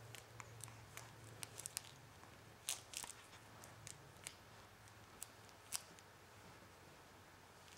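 Near silence: a faint low hum with a scattered handful of soft clicks and smacks.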